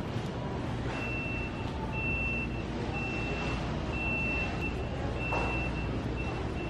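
A vehicle reversing alarm beeping a single high tone about once a second, starting about a second in, over the low steady hum of a large warehouse store.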